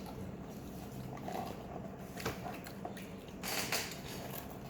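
Quiet eating noises at a table: soft chewing and a few small clicks, with a brief louder rustle about three and a half seconds in.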